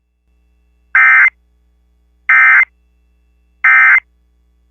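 Emergency Alert System end-of-message (EOM) signal: three short, identical bursts of SAME digital data tone, about a second and a half apart, marking the end of the alert.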